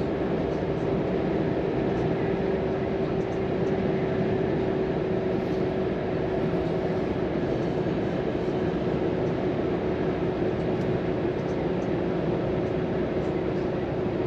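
Volvo FM 420 truck's six-cylinder diesel running at a steady speed, with an even engine hum holding one pitch under a steady rush of road and tyre noise.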